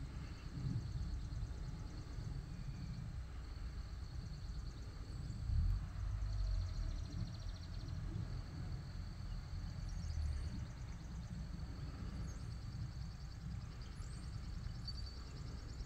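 Outdoor ambience: a steady low rumble under a high, fast-pulsing trill, with a few brief faint chirps.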